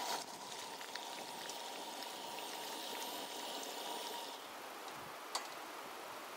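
Food sizzling in a non-stick frying pan on a gas camp stove: a steady hiss with small scattered pops and crackles. The sizzle drops and changes about four seconds in, and a single sharp click comes near the end.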